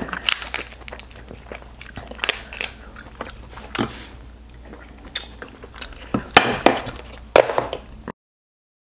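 Crab leg shells cracking and snapping in the hands, with biting, chewing and slurping as crab meat is pulled from the shell by mouth, and a run of sharp crunches. The sound cuts off abruptly about eight seconds in.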